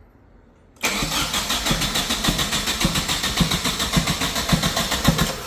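Nissan 240SX four-cylinder engine being turned over on the starter with a compression gauge in a spark-plug hole, cranking without firing in a fast, even rhythm of compression pulses. It starts suddenly about a second in and stops at the end.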